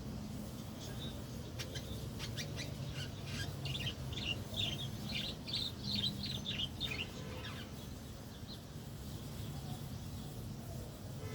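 Pet lovebirds chirping: a run of short, high chirps that thickens into rapid chatter in the middle and dies away a couple of seconds before the end, over a steady low hum.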